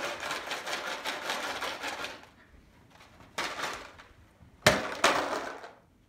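Rocks rattling inside a plastic bottle as it is shaken for about two seconds, then again briefly. Near the end it is thrown and hits the floor with a sharp clatter, a second knock right after, and a short rattle that dies away.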